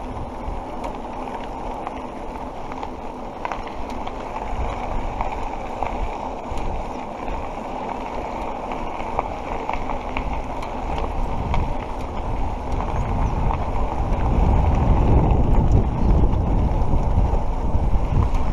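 Wind buffeting the microphone of a handlebar-mounted action camera, mixed with the rumble and light rattle of mountain bike tyres rolling on a dirt road. The low wind rumble grows louder over the last few seconds.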